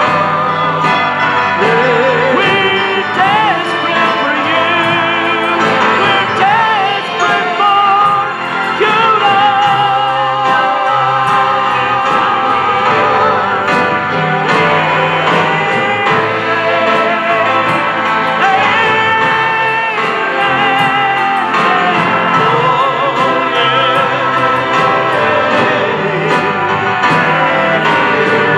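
Live church praise band and singers performing a worship song: several voices singing with a wavering vibrato over a steady drum beat, keyboard and guitars.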